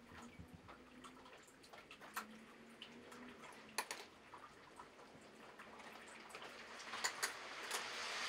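Faint, scattered clicks and taps from a cat's paws shifting on the rim of a plastic litter box filled with pellet litter, a few seconds apart, with a soft rustling hiss building near the end.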